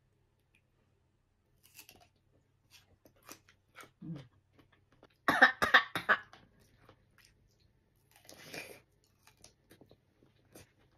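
A person eating mango slices: faint chewing and mouth clicks, with a loud cough-like vocal outburst about five seconds in as she winces at the taste, and a short breathy rasp a few seconds later.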